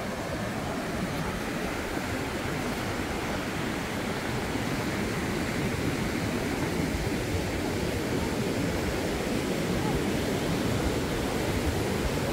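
Steady rush of ocean surf breaking on the beach, mixed with wind buffeting the microphone, growing slightly louder toward the end.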